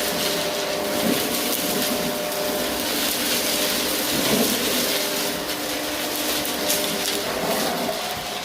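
Vacuum cleaner running steadily, its motor humming under a strong rush of air, with crackling and rattling as crunchy debris is sucked up.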